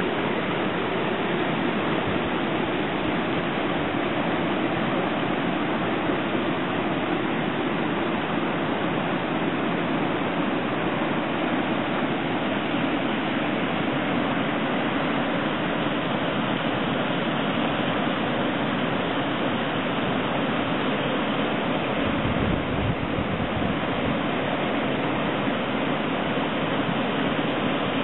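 Muddy floodwater in a swollen creek rushing and churning over rocks and a small cascade: a steady, loud rush of white water. A brief low rumble comes in about three quarters of the way through.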